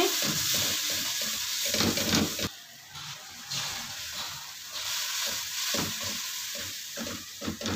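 Butter-and-flour roux sizzling in an aluminium kadai, stirred and scraped with a silicone spatula. About two and a half seconds in, the sizzle drops sharply, and quieter stirring and scraping strokes follow as milk is poured into the pan.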